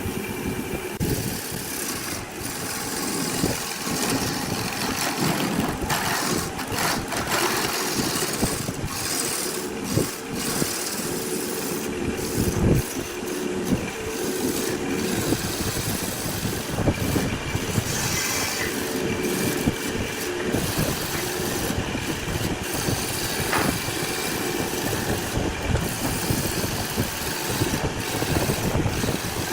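Wood lathe running with a turning tool cutting the spinning wood: a steady mechanical noise with a hiss that keeps briefly breaking off and coming back as the tool meets the wood.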